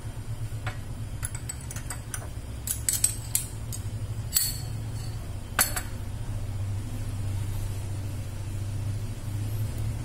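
A metal utensil clinking and scraping against a stainless steel plate as mayonnaise is scooped and spread on bread slices: a scatter of sharp clinks through the first six seconds, over a steady low hum.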